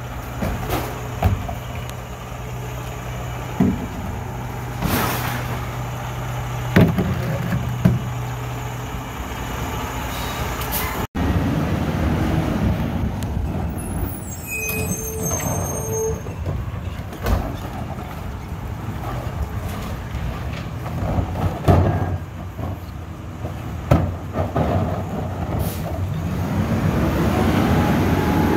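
Rear-loading recycling truck's diesel engine running while carts are emptied into its hopper, with repeated bangs of plastic carts knocking against the hopper rim. Near the end the engine revs up.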